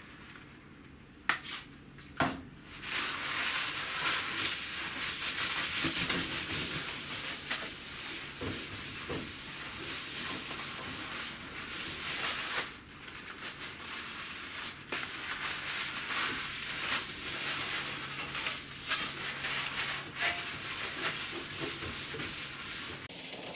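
Sanding on a metal jerry can: a steady scrubbing noise that starts a few seconds in after two sharp knocks, breaks off briefly about halfway, then carries on until near the end.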